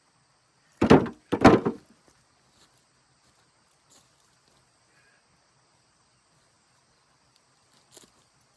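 Two heavy thuds about half a second apart, then a faint knock near the end.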